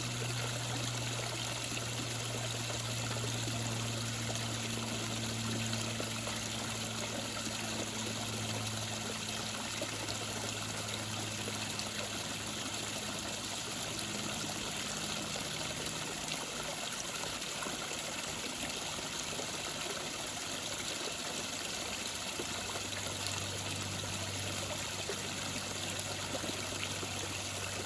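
Water of a small creek waterfall falling and running in a steady, even rush. A low hum lies underneath; it fades out about halfway through and comes back near the end.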